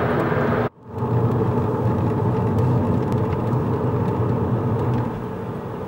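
Inside a car's cabin at motorway speed: steady engine and tyre road noise. It cuts out briefly under a second in, then carries on, a little quieter near the end.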